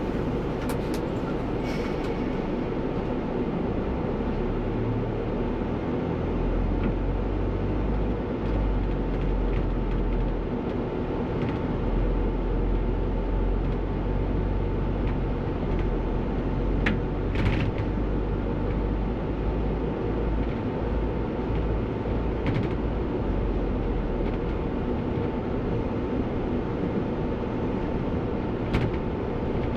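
Bus on the move, with the steady rumble of its engine and running gear and a faint steady whine. A few short knocks or rattles come through, one in the middle louder than the rest.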